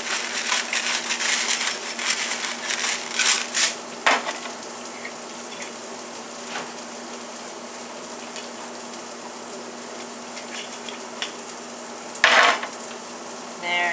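Ginger and herbs frying in olive oil in a skillet on the stove: a steady sizzling hiss. During the first few seconds it is joined by quick crunching clicks of a pepper grinder seasoning fish, and about twelve seconds in there is one short, loud burst of noise.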